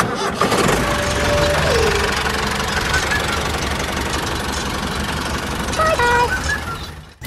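A small motor-driven machine running steadily, a dense mechanical noise, with a few short high tones about one and a half seconds and six seconds in.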